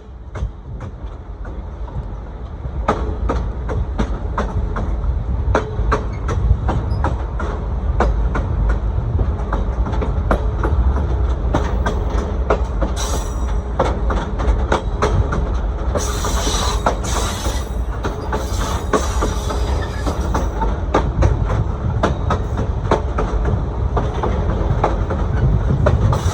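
Steel train wheels clicking over rail joints over a steady low rumble, heard from aboard a moving train. There is brief higher screeching about halfway through.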